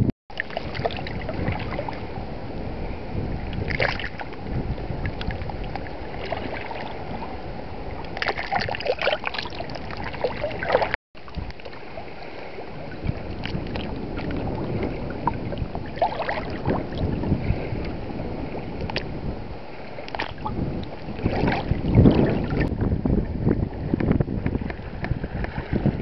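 Small waves lapping and splashing irregularly against shoreline rocks in shallow seawater, with a low rumble of wind on the microphone. The sound breaks off briefly about eleven seconds in.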